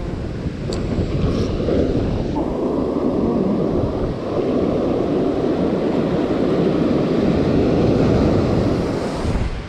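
Steady rushing of wind over the microphone and sea water around the boat, with two faint clicks about a second in.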